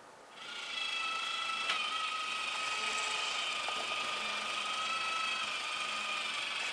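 Small electric motor of a home-made retrofit opener running steadily with a whine as it drives a manual window roller shutter. A single click comes about two seconds in.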